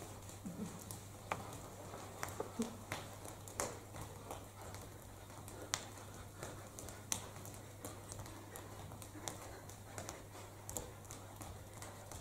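Scattered sharp knocks and clacks, irregular and a few a second, as metal-framed chairs are swung and bumped together, over a low steady hum.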